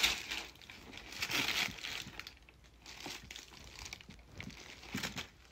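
Tissue paper crinkling and rustling as shoes are handled in a shoebox, loudest at the start, then fainter on-and-off rustles.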